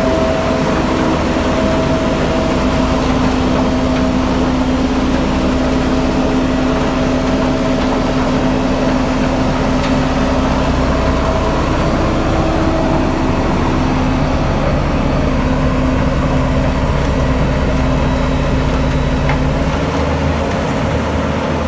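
Heavy engine of road-construction machinery running steadily, a continuous low rumble with a steady hum.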